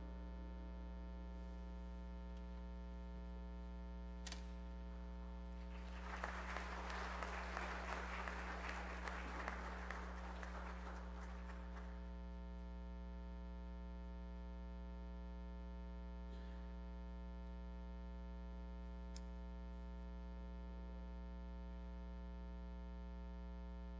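Congregation applauding for about six seconds, over a steady electrical mains hum.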